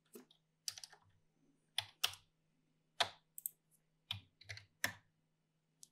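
Faint computer keyboard clicks: about ten irregular key taps spread over several seconds.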